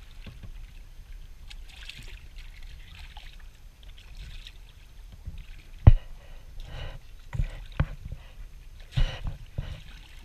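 Water splashing and lapping against the side of a boat where a hammerhead shark is held alongside, over a low rumble. A sharp knock about six seconds in, with a few lighter knocks after it.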